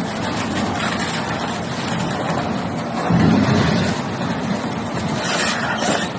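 Wood waste shredder running under load, a steady mechanical din that surges louder for about a second midway, with sharper crackling near the end.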